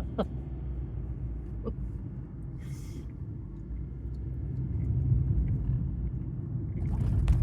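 Low road and engine rumble heard from inside a moving car's cabin, swelling somewhat about halfway through. A brief hiss about three seconds in.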